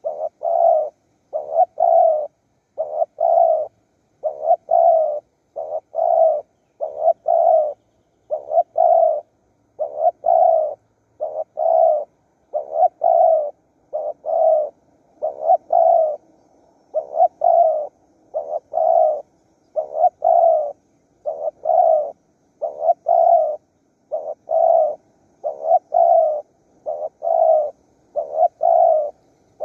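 Spotted dove cooing over and over: a continuous run of short, low hooting notes in quick sets of two or three, with clean gaps between them. It is the advertising call that wild doves are lured with.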